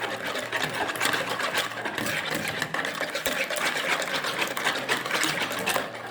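Wire whisk beating eggs with sugar in a bowl by hand, the wires clicking and swishing against the bowl in a rapid, even rhythm.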